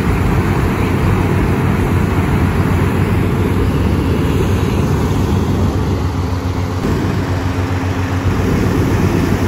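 Engine-driven inflator fan running steadily, blowing cold air into a hot air balloon envelope lying on the ground during cold inflation.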